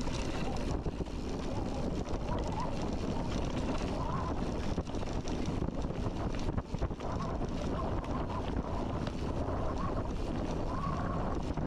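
Wind rumbling over the microphone of a camera riding along on a mountain bike in motion, a steady rushing noise with a few faint short squeaks.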